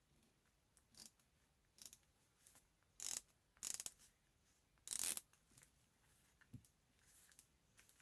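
Correction tape being run across paper in several short, scratchy strokes. The two loudest strokes come about three and five seconds in.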